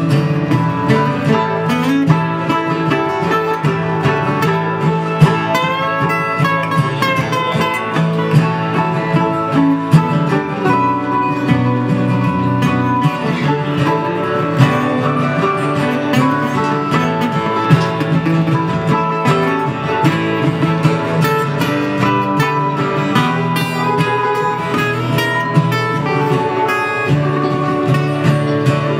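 Two acoustic guitars and a mandolin playing a country-folk song together live, strummed and picked.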